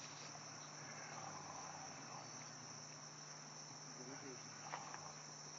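Faint, steady, high-pitched insect chirring, like crickets, going on without a break.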